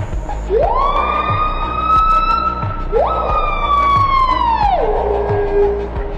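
Two long animal howls. Each sweeps up from low, holds high for about two seconds, then falls away; the second ends in a low held note. A steady-beat music track runs underneath.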